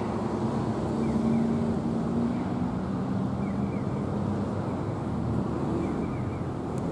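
Steady low vehicle engine rumble with a faint wavering hum, and no sudden events.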